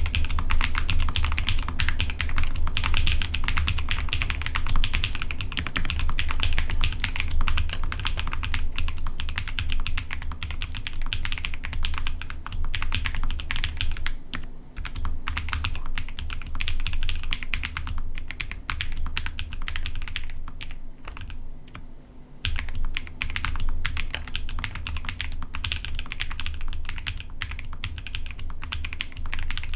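Fast continuous typing on a gasket-mounted Fancy Alice 66 acrylic mechanical keyboard fitted with Akko CS Silver linear switches: a dense stream of key strikes with a really poppy sound. The typing breaks off briefly about halfway through and again a few seconds later.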